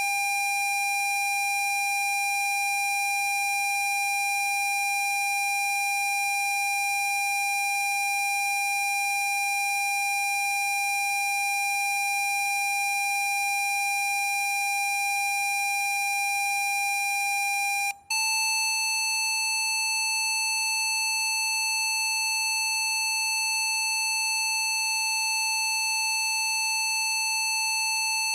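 Electronically generated PC Zapper frequency tone: a steady, buzzy pitch with many overtones. About eighteen seconds in it cuts out for an instant and switches to the next frequency, a slightly higher steady tone.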